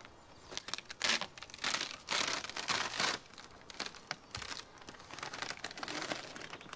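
Clear plastic transfer film crinkling and crackling in a run of short, irregular rustles as it is peeled back off freshly applied plotted vinyl lettering.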